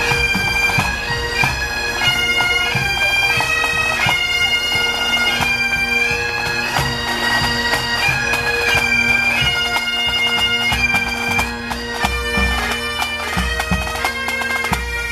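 Pipe band of Highland bagpipes playing a marching tune over their steady drones, with snare and bass drums beating along; the bass drum thumps come through more heavily in the second half.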